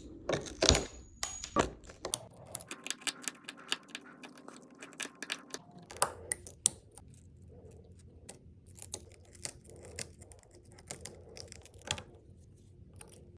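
Small tools clicking and scraping against broken glass on the back of an iPhone as the glass is picked off: an irregular run of light, sharp clicks and ticks, busiest about half a second in and again around the middle.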